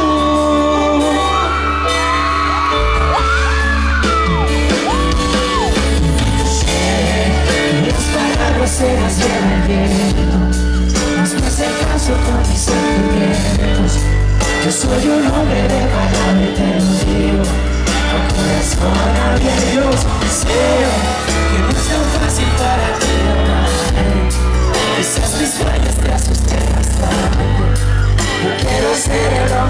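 A live band playing with male lead singing: drums, strong bass and electric guitar under a sung melody that is clearest in the first few seconds.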